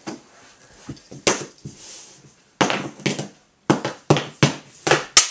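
Hockey pucks being shot with a stick: a run of about ten sharp clacks, coming quicker in the second half.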